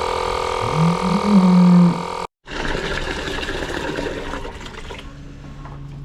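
An engine running with a steady hum, which cuts off abruptly about two seconds in; then water rushing and splashing, fading down toward the end.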